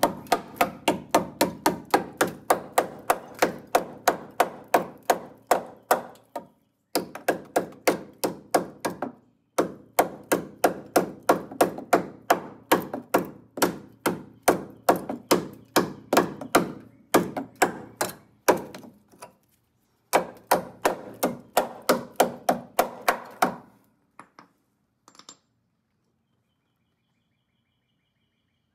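Rapid hammer blows, about five a second, in four runs separated by short pauses. Near the end come a couple of light taps, then the blows stop.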